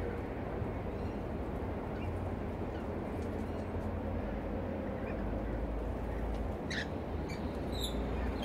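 A few short, harsh rainbow lorikeet calls about two-thirds of the way in and again near the end, over a steady low rumble.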